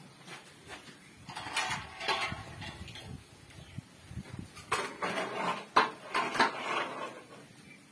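Metal ladle scraping and knocking inside metal cooking pots, in two spells of grating noise with a couple of sharp clanks in the second spell.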